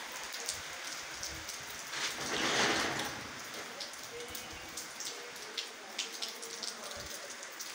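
Heavy rain falling on a wet paved courtyard: a steady hiss with scattered drops tapping close by, swelling louder for about a second around two seconds in.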